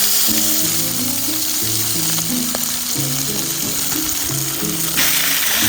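Food frying in a hot pan, a steady loud sizzle, over background music with sustained notes.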